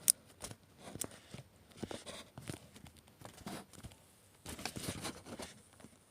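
Faint scattered clicks and scraping from metal parts being handled and worked loose, with a sharper click at the start and another about a second in.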